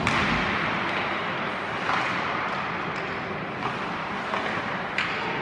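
Ice hockey arena sound during play: a steady hiss of skates on the ice, broken by a few sharp clacks of sticks and puck, the clearest at the very start and near the end.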